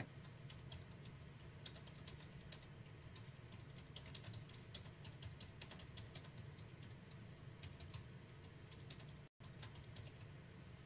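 Faint, irregular clicking of a computer keyboard being typed on, over a low steady room hum. The sound cuts out completely for an instant about nine seconds in.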